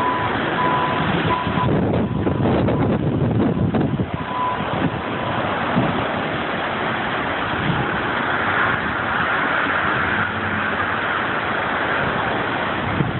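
Storm wind rushing and gusting against the phone's microphone, a loud steady noise that surges and eases. A few short high beeps sound within the first five seconds.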